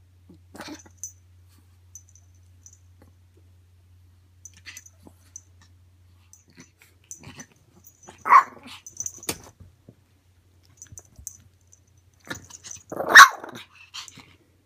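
Chihuahua giving two short play barks, the first about eight seconds in and a louder one about thirteen seconds in, with light scuffling and small clicks from the play on the blanket between them.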